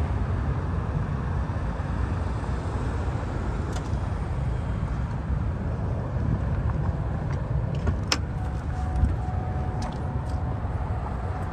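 Steady low rumble of road traffic around a parking lot, with a couple of faint clicks and a faint steady hum near the end.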